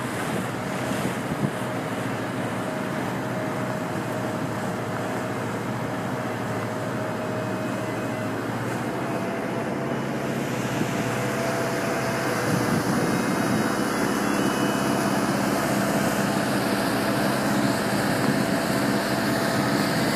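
Water taxi's engine running steadily under way, a constant drone with a faint high whine over a steady rushing noise; it grows a little louder about twelve seconds in.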